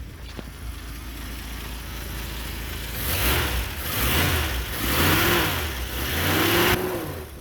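1954 Nash's straight-six engine running steadily, then rising and falling in pitch three times in the second half as it is revved.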